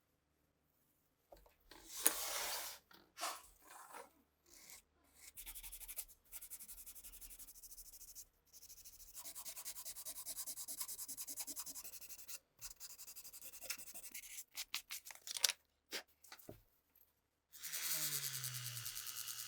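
Hand rubbing and scrubbing strokes on a pistol part during restoration, abrasive or brush against metal, in uneven stop-start bursts with a few light clicks. Near the end a small electric tool starts running with a low hum.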